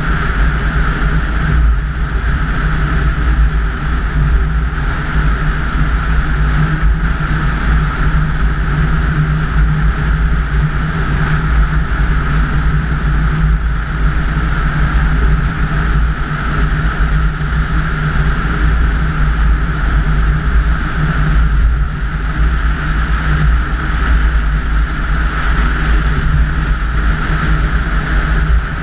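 Car driving at speed on an open road: steady rumble of wind and tyre noise with a low engine drone.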